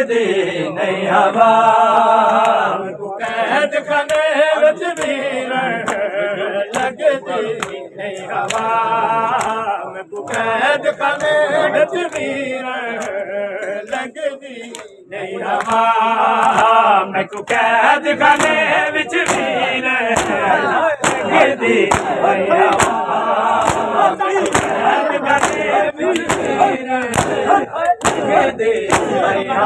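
Men's voices chanting a noha together, with rhythmic slaps of hands on bare chests (matam) joining in about two-thirds of the way through, a little more than one beat a second.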